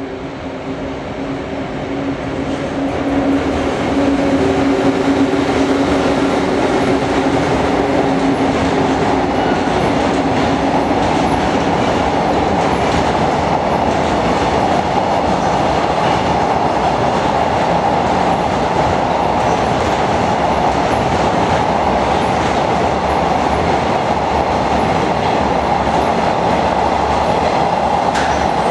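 Freight train hauled by an EF81 electric locomotive going through a station. For the first few seconds a steady hum grows louder, then a long, even rumble of the wagons rolling past holds at full level.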